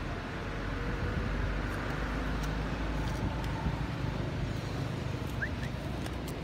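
Low rumble of a passing motor vehicle, swelling a second or two in and easing off near the end. Two short, rising high chirps sound near the end.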